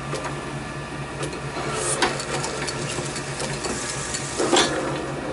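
Small metal-turning lathe running with a steady hum, with two short metallic clatters as tooling is handled, about two seconds in and again near the end.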